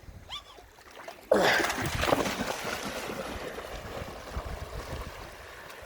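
A loud splash in river water about a second in, followed by splashing that slowly dies away.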